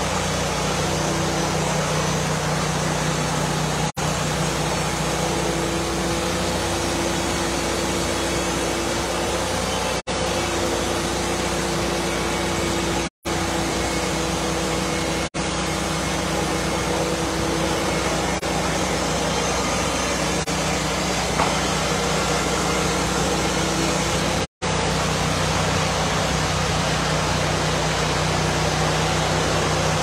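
Portable band sawmill running: a steady, loud engine-and-saw drone, with a higher tone that wavers and then fades out about 25 seconds in. The sound drops out for an instant several times.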